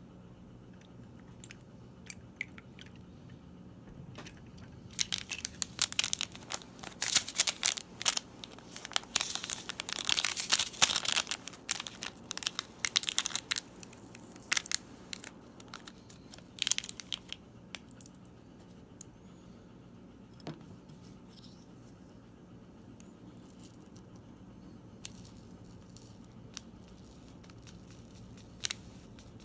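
Plastic packaging of a candy kit crinkling and tearing in a dense crackly flurry for about twelve seconds, then a few scattered clicks.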